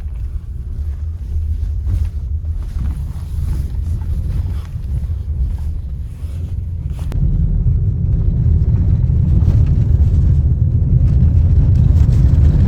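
A vehicle on the move: steady low rumble with wind noise on the microphone, getting louder about seven seconds in.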